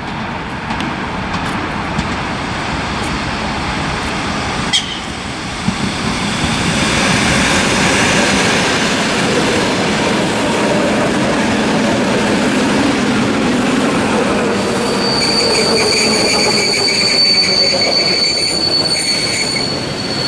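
ER2 electric multiple unit passing close by, its wheels running on the rails with a rush that grows louder as the carriages go past. About fifteen seconds in, a steady high-pitched wheel squeal starts and holds to the end.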